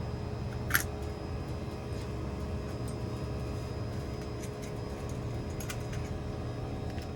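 Fujitsu ducted air conditioner running: a steady machine hum with several held low tones, and a sharp click about a second in.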